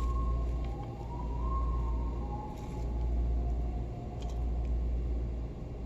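A faint wavering tone sliding slowly up and down over a steady low rumble, with a couple of light clicks from small objects being handled.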